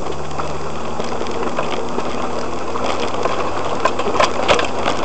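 Vehicle engine running steadily, heard from inside the cabin while driving over a rough, rocky dirt track, with scattered knocks and rattles from the vehicle that come more often in the last second or so.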